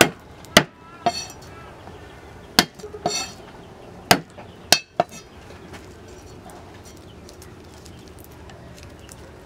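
Iron cleaver knocking and scraping on a stone slab: about eight sharp knocks in the first five seconds, some with a brief metallic ring, then only a faint steady background.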